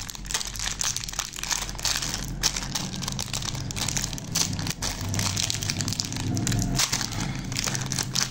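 Thin plastic wrappers of small Candyland jelly packets crinkling and tearing as fingers pull them open, a continuous run of small crackles.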